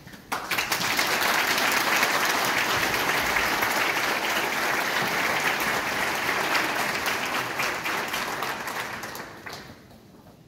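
Congregation applauding. The applause starts suddenly, holds steady for about nine seconds, then dies away.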